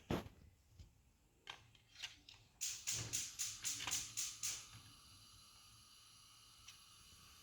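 A few sharp clicks, then a quick run of about eight clicks about three seconds in, followed by a faint steady hum.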